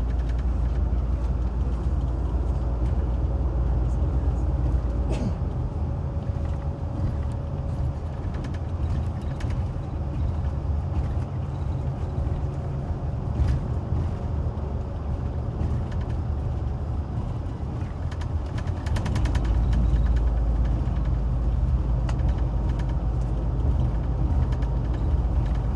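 Tour coach moving, heard from inside the cabin: a steady low engine and road rumble with occasional creaks and rattles from the body, growing louder around two-thirds of the way through.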